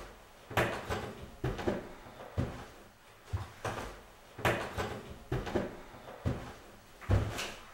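A series of heavy wooden knocks and bumps, roughly one a second, some in quick pairs.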